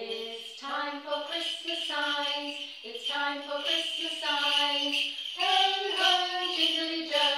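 A Christmas song: singing voices holding notes over steadily shaking jingle bells.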